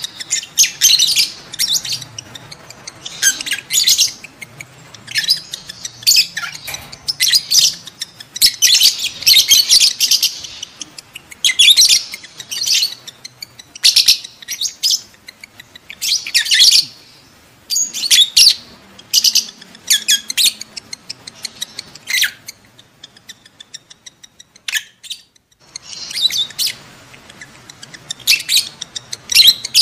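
Lovebirds in breeding condition giving loud, shrill chirps in rapid bursts, one after another, with a brief pause about three-quarters of the way through.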